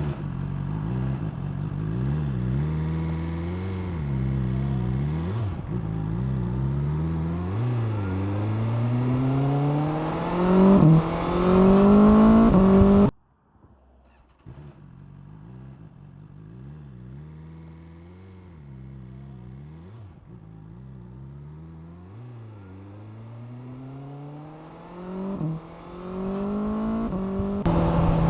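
Motorcycle engine accelerating up through the gears, its pitch rising and then dropping back at each shift, heard through a clip-on mic. It cuts off abruptly about 13 seconds in, and a quieter second run of the same pulls through several more shifts before getting louder near the end.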